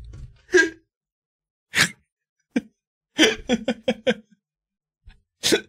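A man laughing hard in separate breathy bursts, with a quick run of laughter pulses about three seconds in.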